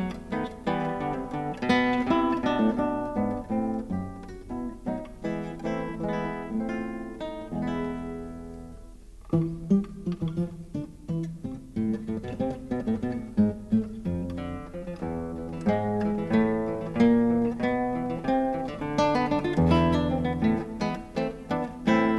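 Background music: acoustic guitar playing a continuous run of plucked notes, easing off briefly about nine seconds in before picking up again.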